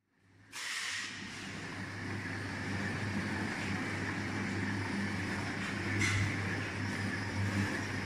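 Stainless steel double-cone mixer running: its electric motor and worm gearbox give a steady hum under an even hiss as the vessel turns. The sound starts about half a second in, and there is a single light knock about six seconds in.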